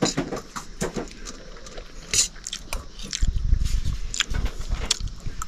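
A fork clicks and scrapes on a stainless steel plate as noodles are twirled. From about three seconds in, a forkful is taken to the mouth, with low rumbling and eating noises.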